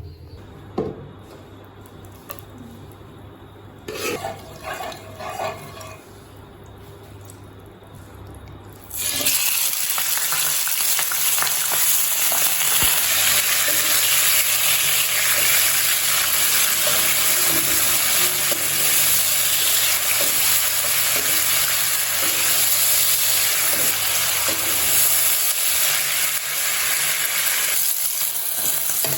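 Food frying in a hot pan: a knock and some light clatter of utensils in a quieter first stretch, then a loud, steady sizzle that starts about nine seconds in and carries on.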